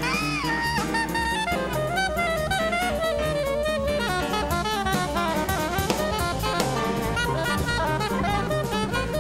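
Live jazz: a soprano saxophone plays quick running lines over a walking upright bass and a drum kit with cymbals.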